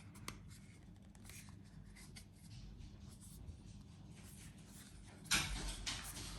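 Hands handling a plastic Ring video doorbell, light rubbing and small clicks as a part is worked loose, then a louder scraping rustle about five seconds in.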